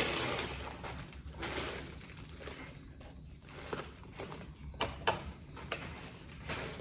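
Parcel packaging being handled: a plastic mailer bag rustling as a bubble-wrapped cardboard box is pulled out and turned over, giving scattered soft crinkles and light knocks.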